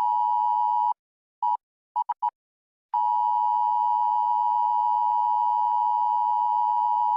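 Emergency Alert System-style attention tone: a steady beep held about a second, then a short beep and three quick beeps, then the tone held unbroken from about three seconds in.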